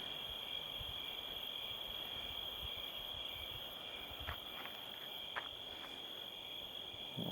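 Steady chorus of crickets, a continuous high trill, with a few faint ticks about four to five seconds in.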